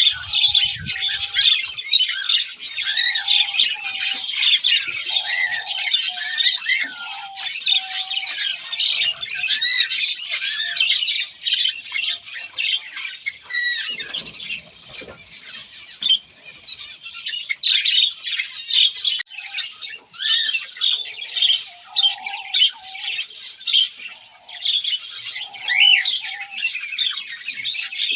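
Many aviary birds chirping and chattering at once in a dense, unbroken chorus of high calls, with shorter, lower squawks now and then.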